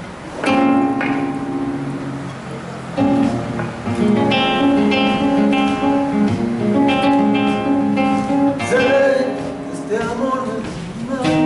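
Acoustic guitar playing a song's introduction, a run of chords ringing one after another before the vocal comes in.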